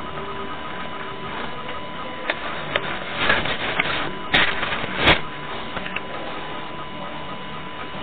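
Close handling noise on a small camera's microphone: rustling with a few sharp knocks, the two loudest about four and five seconds in, as a dog's face comes right up to the lens. Under it runs a steady hiss with a faint constant tone.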